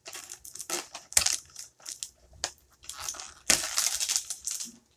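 Plastic packaging being handled and crinkled: irregular crackles and rustles, with a longer, louder crinkle about three and a half seconds in.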